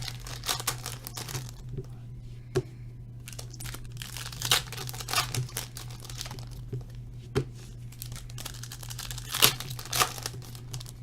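Trading-card pack wrappers being torn open and crinkled by hand, in irregular crackles and sharp rips, over a steady low hum.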